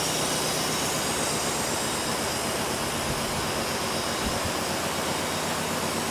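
Mazda RX-7 FC 13B two-rotor rotary engine idling steadily at about 1,000 RPM with no exhaust system, only a flex hose on the exhaust port, running on a Megasquirt 2 engine controller.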